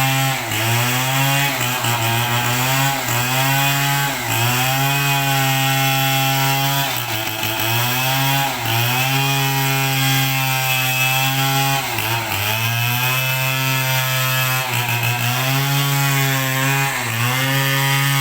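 Chainsaw running at high revs and cutting into wood, its pitch sagging and recovering every second or two as the chain bites under load.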